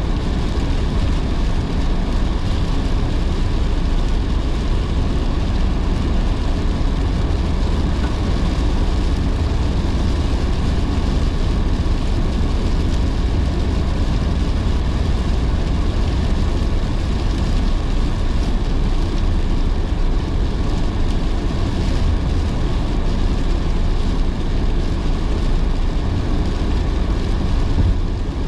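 Car driving in heavy rain: a steady low rumble with an even hiss of tyres on the wet road and rain.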